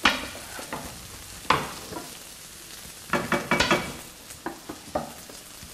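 Rice sizzling as it is sautéed in a granite-coated pan, with a wooden spoon stirring and scraping through it in several strokes, a quick cluster of them about three seconds in.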